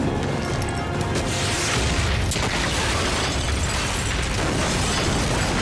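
An explosion with a deep rumble, setting in about two seconds in and carrying on to the end, over a music score.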